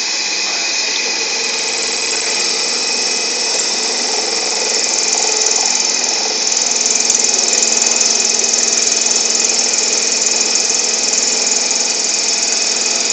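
CNC machine running while it machines stainless steel, a steady mechanical whine over a hiss, growing louder about six seconds in.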